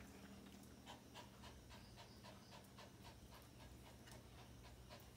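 Faint, quick dog panting, about three to four breaths a second, over a low steady hum.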